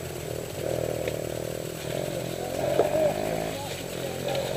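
A small engine running steadily, its pitch wavering and briefly rising and falling about three seconds in.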